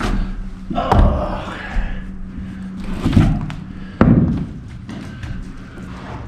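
Four heavy thuds and knocks from building work in wood framing, spaced irregularly, over a steady low hum.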